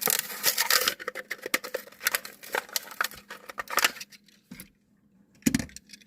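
A Hot Wheels blister pack being opened by hand: rapid crackling and crinkling of plastic and cardboard for about four seconds, then a single thud about five and a half seconds in.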